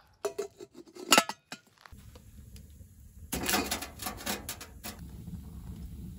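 Blue enamelware percolator coffee pot being handled: sharp metal clinks as its parts are fitted together near the start, then a cluster of clattering knocks a couple of seconds later as it is set down on a steel wood stove's top. A steady low background noise runs underneath after the first two seconds.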